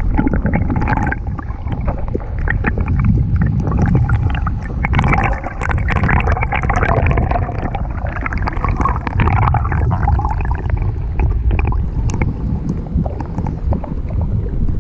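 Shallow rocky stream heard with the microphone underwater: a muffled, steady rushing and gurgling of flowing water, dotted with many small clicks and ticks.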